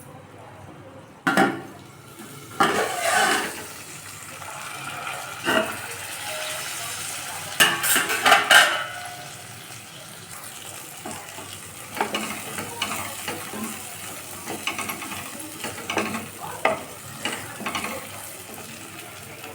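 Eggplant and potato sizzling in a hot pan, with a spatula stirring and scraping against the pan in a series of sharp knocks and scrapes, loudest about eight seconds in.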